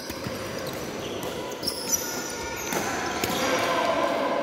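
Badminton rally in a large hall: sharp racket strikes on the shuttlecock, two of them close together about two seconds in, with squeaking sports shoes on the court floor and the hall's echo.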